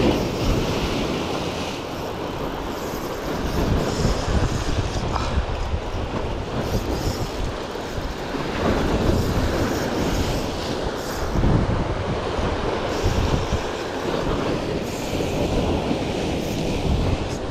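Surf washing over rocks and wind buffeting the microphone, with several louder surges, while a spinning reel is cranked steadily to wind in a hooked sea bass.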